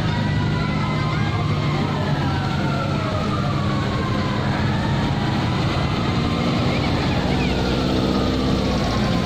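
Several sirens wailing, their pitches rising and falling over one another, over the steady low drone of passing vehicle engines.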